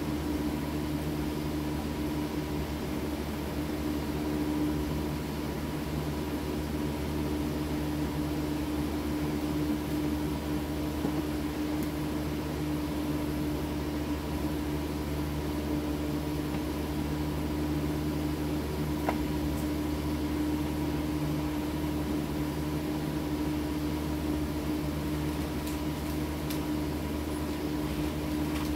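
A machine running with a steady, unchanging hum at a constant pitch, with one faint click about two-thirds of the way through.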